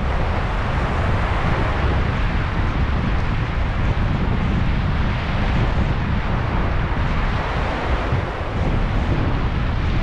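Sea waves washing onto a sand and pebble beach: a continuous hiss of surf, with wind buffeting the microphone as a low rumble underneath.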